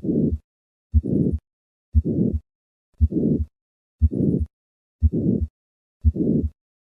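Heart sounds with a harsh systolic murmur: about one beat a second, each a short low thump followed by a harsh rushing murmur that fills the gap up to the second heart sound. This is the murmur of hypertrophic cardiomyopathy, from obstruction of left ventricular outflow.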